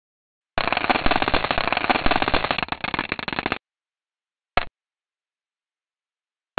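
Audio from the Stardust spacecraft's Dust Flux Monitor as dust and icy particles from comet Tempel 1 strike it: a dense, rapid crackle of tiny impacts, like hail hitting a window. It starts about half a second in, runs for about three seconds and stops abruptly, then one short burst follows after a silent gap.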